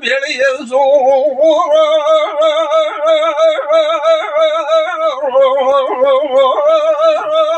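A single voice chanting one long, unbroken held note with a fast, even tremble in the pitch, with no words.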